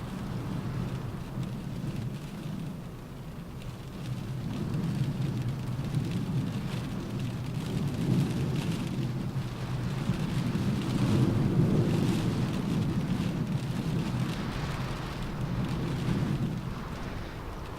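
Rain pattering steadily on a car roof, with a low rumble underneath that swells to its loudest a little past the middle and then eases off.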